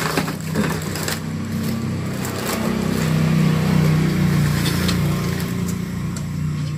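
An engine running steadily, growing louder toward the middle and easing off near the end, with the crinkle and crackle of plastic bags and bubble wrap being handled.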